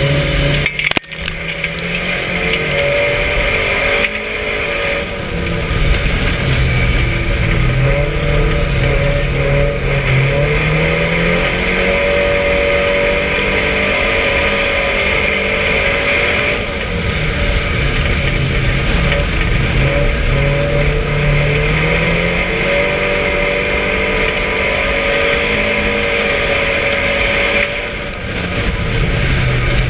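Racing car's engine heard from inside the cockpit under race load, its pitch climbing and then dropping back again and again as it accelerates and lifts off around the oval.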